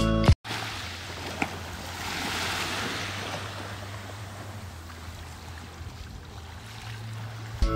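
Small sea waves washing onto a sandy shore: a soft, even rush that swells about two seconds in and then eases.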